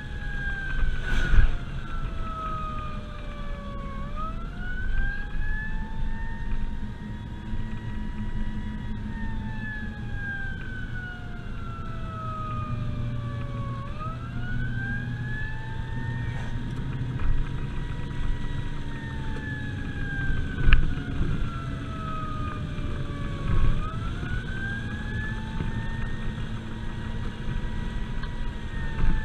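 Fire apparatus siren in a slow wail, its pitch falling, rising and holding in cycles of about ten seconds, heard from inside the cab over steady engine and road noise, with a few short knocks.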